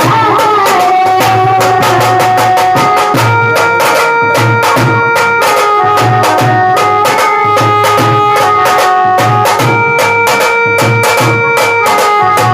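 Instrumental music with a steady drum beat and held melody notes.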